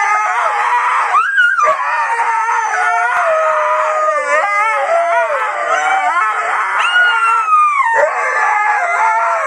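A dog howling: a long, wavering howl whose pitch keeps rising and falling.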